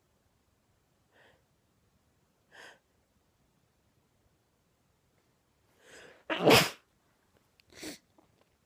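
A woman sneezing once, loud and harsh: two faint catching breaths, then a short inhale leading into a sharp sneeze about six seconds in. A shorter, quieter breath sound follows about a second later.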